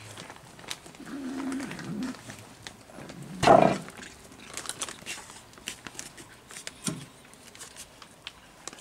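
A cat growling low and steadily for about a second, then a loud, short snarl from a cat about three and a half seconds in, as cats squabble over food. Small clicks and crunches of cats eating dry kibble run through the rest.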